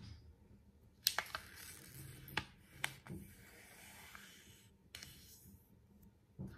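A sheet of origami paper being handled on a wooden tabletop: soft rustling and sliding as it is smoothed and unfolded, with a few sharp crackles of the paper, the first about a second in and another about five seconds in.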